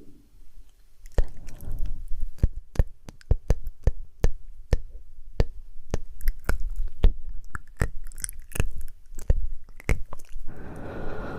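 An irregular run of sharp clicks and taps, several a second, giving way near the end to a steadier noisy sound.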